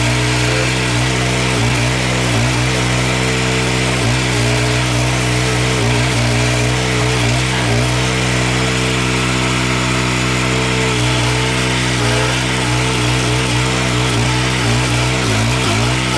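Victory GSF-1500 stump grinder's 420 cc, 15 hp petrol engine running steadily at high speed, its pitch dipping briefly now and then as the cutting wheel takes load while grinding a root, and wavering more often in the last few seconds.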